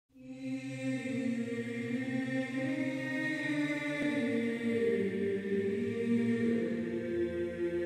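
Several voices of an Afro-jazz vocal group singing long held notes together in harmony, the chord shifting slowly; it fades in quickly at the start.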